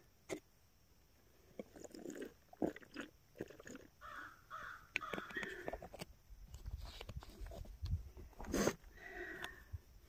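Crow cawing faintly, a run of about four caws around the middle and another call near the end, with rustling and knocks from a bug-net hood and gloved hand handling the phone.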